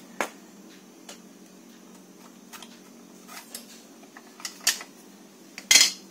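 Scattered clicks and light clinks of plastic and metal parts being handled on a photocopier's paper pickup roller assembly, with a brief, louder clatter near the end.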